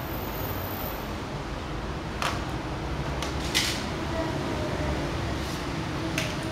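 A few sharp clacks of small plastic toy cars being handled and knocked together, the loudest about halfway through, over a steady low background hum.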